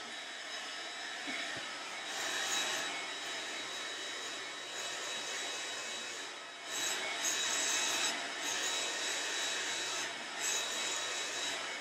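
Hand-held hair dryer running with a steady whoosh and a faint high whine, its level swelling about two seconds in and again near seven seconds as it moves about, while the hair is scrunched dry.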